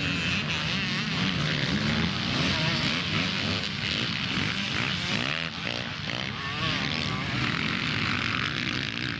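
A pack of motocross bikes racing past, many engines revving up and down over one another in a constant snarl.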